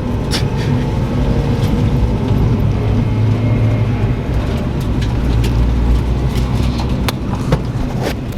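Car driving on the road: a steady low engine drone with road noise, and a few sharp clicks or knocks scattered through it.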